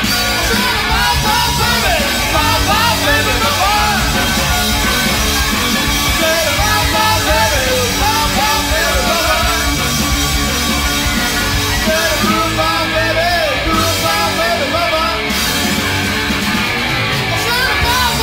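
Rock band playing live, loud and steady, with a lead line bending up and down in pitch over the band.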